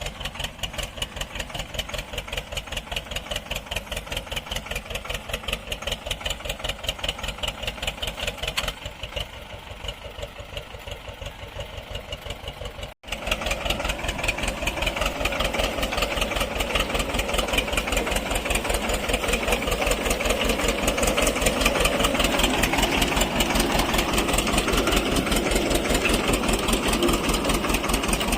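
Tractor engine running steadily with a fast, even chugging. About halfway through it cuts out for an instant, then comes back louder.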